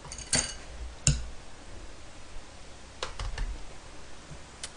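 Metal chopsticks clicking against a ceramic rice bowl: a handful of short, sharp clicks, several together near the start, one about a second in, a pair around three seconds in and one near the end.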